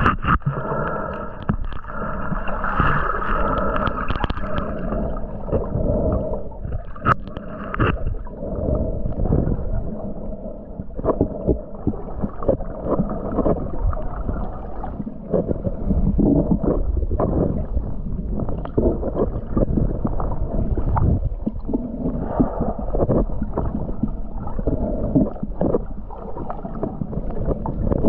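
Underwater sound picked up through a GoPro's waterproof housing: muffled water swishing and gurgling with irregular knocks and clicks. A steady hum runs underneath and stops about eight seconds in.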